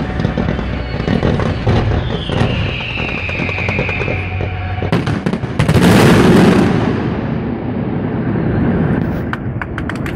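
Aerial fireworks display: a dense run of bangs and crackles, with a falling whistle from about two to five seconds in. The loudest burst comes about six seconds in, and a quick run of sharp crackles follows near the end.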